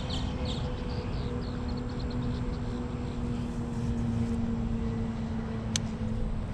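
A steady motor-like hum over a low rumble, with faint high chirps in the first couple of seconds and one sharp click near the end.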